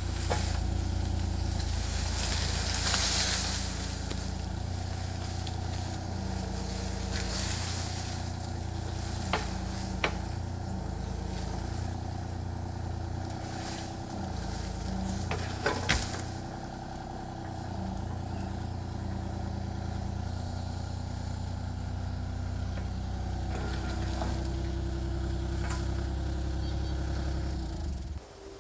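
Kubota KX033-4 mini excavator's diesel engine running steadily under hydraulic load, its pitch shifting a little as the controls are worked. A few sharp knocks and cracks stand out over it.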